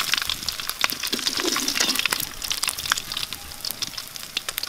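Hot oil sizzling in a metal pan, a steady hiss studded with many sharp crackles and pops, easing off a little after about two seconds.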